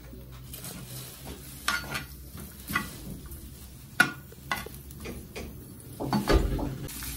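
Sliced onions frying in a little oil in a nonstick frying pan, with a faint sizzle, while a steel slotted spoon stirs them, scraping and clinking against the pan a few times; the sharpest clink comes about four seconds in.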